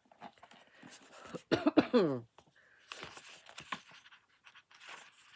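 A woman's cough, one loud spell about a second and a half in, dropping in pitch, amid faint rustling.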